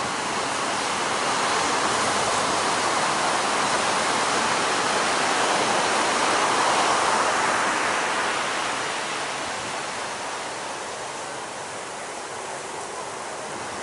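Roar of heavy ocean surf and churning whitewater, swelling to a peak about halfway and then easing off.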